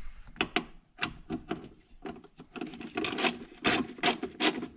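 Socket ratchet on an extension being worked back and forth to loosen a bolt, each back-swing giving a short rasp of pawl clicks. The strokes come a few per second, faster and louder in the second half.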